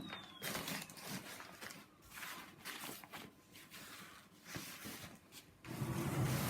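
Irregular soft rustling and light taps of gloved hands handling and setting things on a table, with a louder stretch of handling noise near the end.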